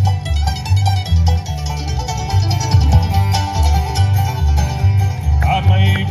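A band playing a song live, instrumental: quick plucked string picking over a steady, evenly pulsing bass line. Near the end a new wavering melody line comes in above it.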